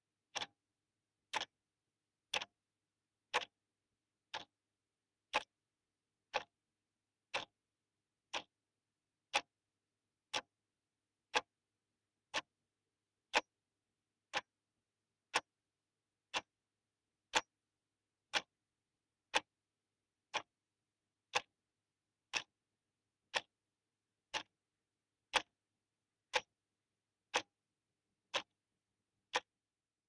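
A clock ticking steadily, one sharp click each second.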